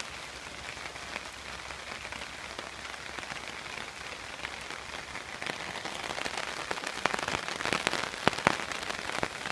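Steady rain falling, with louder single drops pattering close by in the last few seconds.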